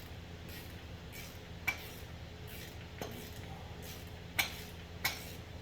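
Light metal clinks as a steel spindle nut is run onto a Dana 60 front axle spindle by hand: four sharp clinks a second or so apart, the loudest a little past the middle, over a steady low hum.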